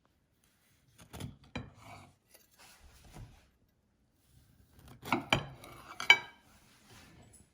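Kitchen dishes and utensils knocking and clinking: a few light knocks about a second in, then a cluster of sharper, ringing clinks around five to six seconds in, the last one the loudest.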